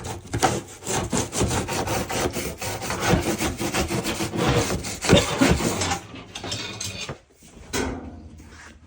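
Rapid rubbing and scraping as lint and debris are worked out of a clogged dryer vent duct, dense and continuous for about six seconds, then lighter with one short scrape near the end.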